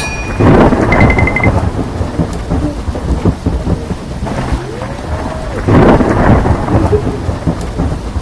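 Loud, rushing, rumbling noise with crackle, swelling twice, and a quick run of short high beeps about a second in.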